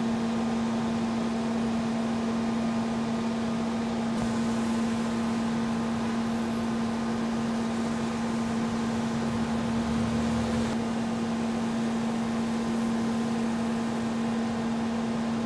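Steady machinery hum from heavy trucks working at a flood: a constant low drone under a wash of noise that does not change.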